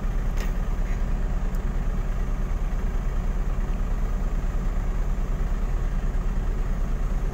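Van's engine idling, heard from inside the cabin as a steady low hum with a fast, even pulse.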